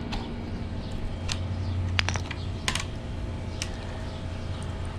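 Several separate sharp clicks and taps from handling a pressure washer wand's quick-connect coupler and nozzles during a nozzle change, over a steady low hum.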